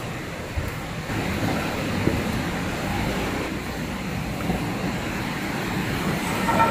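Steady background rumble with a few sharp knocks about half a second, two seconds and four and a half seconds in, as heavy wooden beams are carried and set down on a concrete floor.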